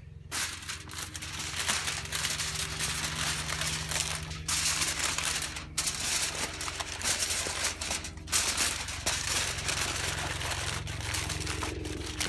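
Aluminium foil being crinkled and folded by hand to wrap a roast: a continuous crackling rustle with a few brief pauses.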